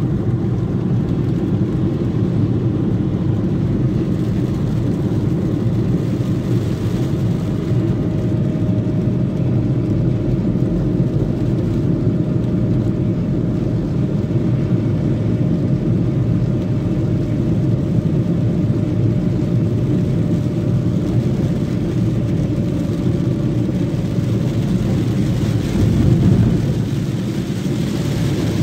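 Steady road and engine noise inside a moving car's cabin, with the tyres running on a rain-soaked road.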